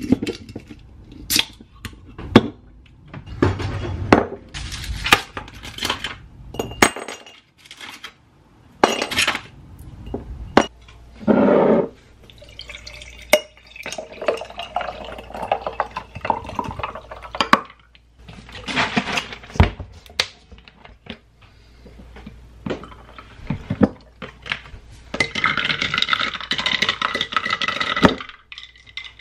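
Kitchen handling sounds: a drink can is opened and its dark liquid poured into a glass mason jar, with clicks and knocks of the can and jar on the counter. Near the end, a metal spoon stirs and clinks inside the glass jar.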